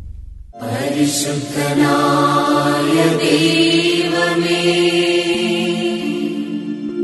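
Slow devotional chant music with long held notes, starting about half a second in after a brief lull.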